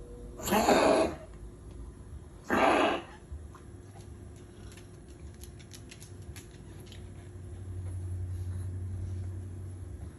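A pet's wheezing cough: two harsh, noisy hacks, the first just under a second in and the second about two and a half seconds in, each lasting about half a second, the sign of an animal struggling to breathe.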